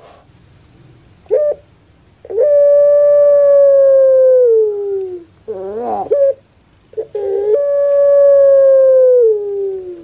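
Caged puter pelung dove (Barbary dove, Streptopelia risoria) cooing. It gives two phrases, each a short note followed by a long drawn-out coo that is held steady and then slides down at its end. A brief wavering, rolling coo comes between the two phrases.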